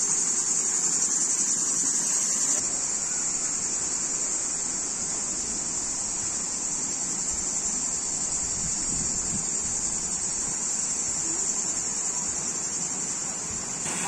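Steady rush of flowing water from a stream or channel, an even noise with a strong high hiss, easing slightly after a couple of seconds.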